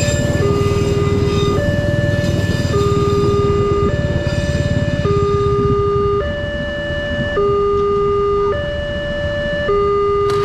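Wantech railway level-crossing alarm sounding its electronic two-tone warning, a lower and a higher tone alternating about every second. Under it, a passenger train's wheels rumble over the rails, fading out about six seconds in as the last car clears the crossing.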